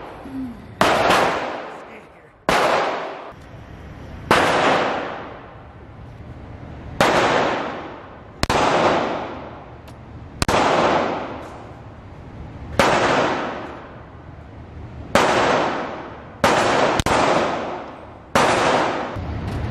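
9mm semi-automatic pistol fired about eleven times at an unhurried pace, a shot every one and a half to two and a half seconds. Each crack is followed by a long echo off the indoor range's concrete walls and floor.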